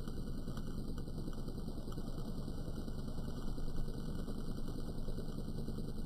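Modified microwave oven transformer buzzing steadily under heavy load, its thick secondary shorted through a small metal contact that glows red-hot, with a few faint crackles from the sparking contact.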